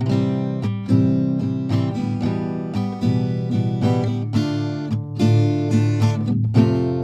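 Background music: acoustic guitar picking and strumming chords, starting suddenly at the beginning.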